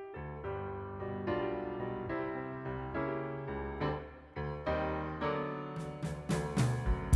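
Background music: piano chords played in a steady run of notes, with drum hits coming in near the end.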